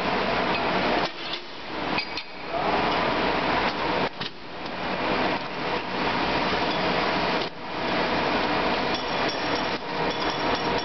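Vertical injection moulding machine for cables running: a loud, dense, steady machine noise with faint steady tones, dipping briefly a few times, mixed with metal knocks and clanks.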